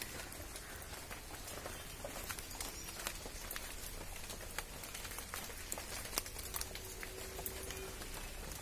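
Rainwater dripping and pattering in scattered drops onto wet leaves and ground after heavy rain, over a soft steady hiss. A faint steady tone joins in during the last couple of seconds.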